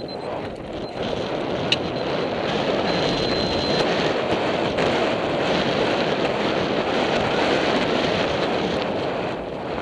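Wind buffeting the microphone of a helmet camera as the horse gallops, a steady loud rushing noise. A single sharp click comes about two seconds in.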